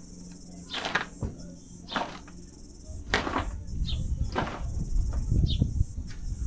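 Brief rustling swishes, about one a second, with a low rumble from about three seconds in: the handheld camera being moved and handled.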